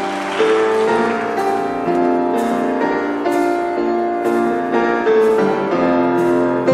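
Piano music, with new notes struck about once a second over held chords.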